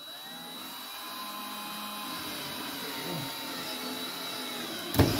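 Cordless drill running steadily against the plywood panel, its motor hum holding a few steady tones and slowly growing louder. A sharp knock comes near the end.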